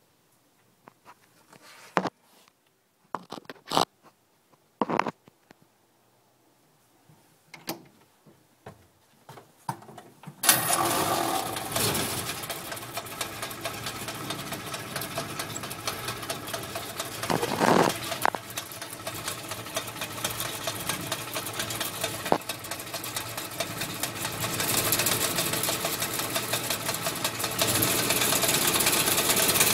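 A few scattered clicks and knocks, then about ten seconds in the Willys MB jeep's four-cylinder flathead engine starts and runs at idle with a steady rattle, getting louder in the last few seconds. The rattle is taken to come from the clutch.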